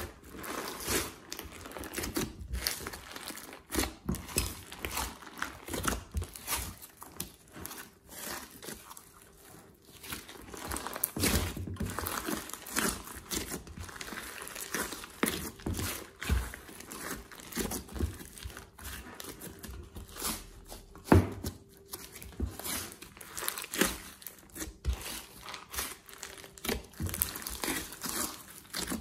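Hands kneading, squeezing and stretching a large mass of glossy slime in a glass dish: an irregular run of wet squishes and crackly clicks, with one louder click about 21 seconds in.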